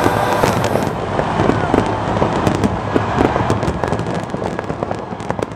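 Fireworks exploding in quick, overlapping bangs and crackles that fade toward the end.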